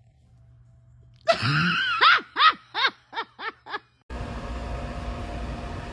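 A rising high-pitched vocal cry, then about six short cries that each fall in pitch and get shorter, ending about four seconds in. Steady background noise follows.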